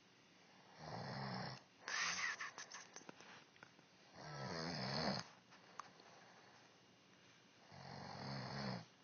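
A woman snoring in her sleep: three snores roughly three to four seconds apart. The first is followed by a noisy breath with clicks.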